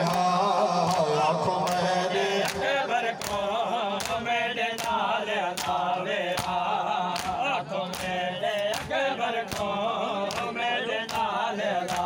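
Men chanting a noha, a lead voice with the crowd joining in, over the crowd's hand-on-chest matam beating in a steady rhythm, a little under two strokes a second.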